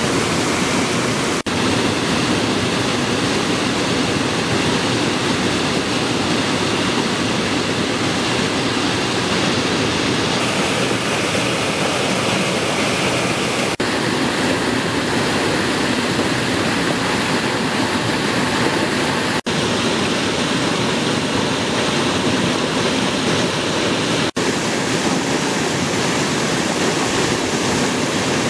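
Muddy floodwater in a swollen stream pouring over a low stepped drop and churning below it: a steady, loud rushing, cut for an instant a few times.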